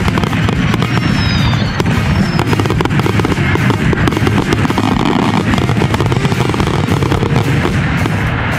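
Fireworks barrage: rapid, overlapping bangs and crackles going off in quick succession, with a few faint whistles about a second in.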